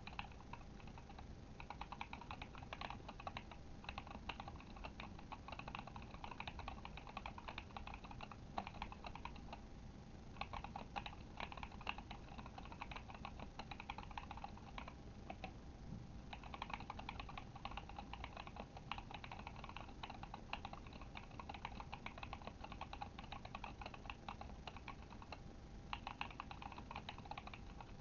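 Continuous typing on a Kemove Shadow mechanical keyboard with Glorious Panda tactile switches: a fast, steady run of key clacks, with short pauses about ten, fifteen and twenty-six seconds in.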